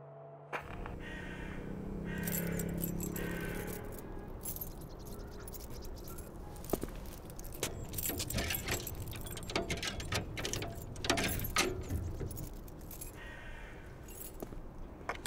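A bunch of keys jangling and rattling, a run of quick metallic clicks and jingles through the middle of the stretch, over a steady outdoor background.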